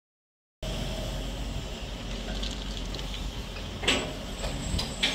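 Wheel loaders' diesel engines running steadily while they handle a railroad switch panel, with two sharp metal clanks, about four and five seconds in. The sound begins after a brief moment of dead silence.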